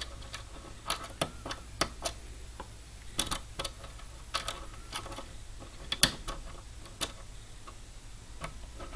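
Irregular small metal clicks and taps of a diamond lock pick working the pins of a five-pin mortise lock cylinder, with the loudest click about six seconds in. A faint steady low hum runs underneath.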